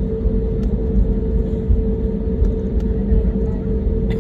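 Cabin noise inside an Airbus A320neo on the ground: a steady low rumble with a constant mid-pitched hum, and a few faint clicks.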